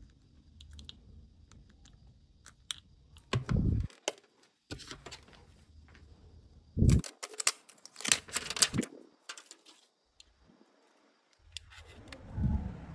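Hands working on a Xiaomi Redmi Note 7: soft clicks and taps from pressing parts into the open phone, then louder crinkling and rustling from the replacement glass back cover's plastic protective liner as it is handled. The sound drops out abruptly twice, where the footage is cut.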